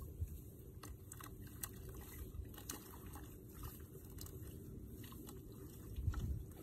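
Dry straw and grass crackling and rustling as it is handled, in scattered sharp crackles over a steady low rumble.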